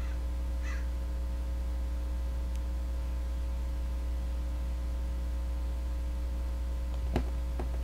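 Steady low electrical hum throughout. Over it, a plastic modelling tool is drawn through soft Play-Doh on a tabletop: a faint scrape about a second in and two small clicks near the end.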